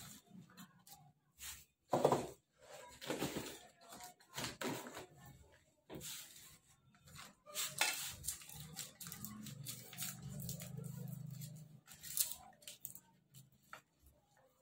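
Potting soil being scooped and pressed into a small plant pot with a plastic trowel: irregular scrapes, crunches and knocks, the sharpest about two seconds in and again near eight seconds.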